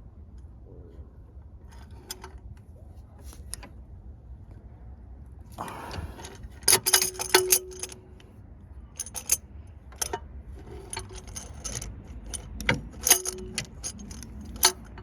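Metal tool clinking and scraping against engine parts in irregular clusters of light clanks, a few ringing briefly, as it is worked down onto the oil filter housing. It starts quiet and grows busier about six seconds in.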